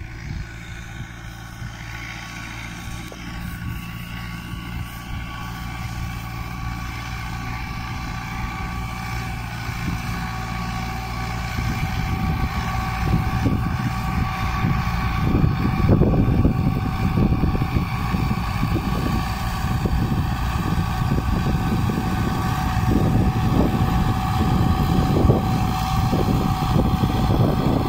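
Tractor engine running steadily while pulling a boom sprayer, growing gradually louder as it comes closer.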